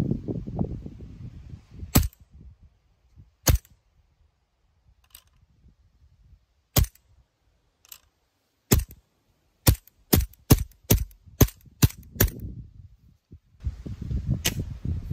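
ICS SAR9 gas-blowback airsoft gun firing 0.25 g BBs into a clear sight shield from about 15 cm: sharp single shots every second or so, then a quicker string of about ten shots from about ten seconds in.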